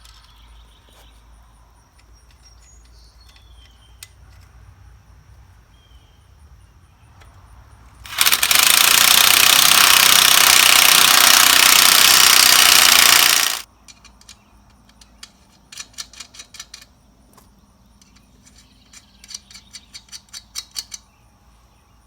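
A loud, steady rushing noise that cuts in sharply about eight seconds in and stops just as sharply about five seconds later, followed by two short runs of rapid clicking from a ratchet wrench run onto the nuts holding a new Pitman arm on a Ford 501 sickle bar mower.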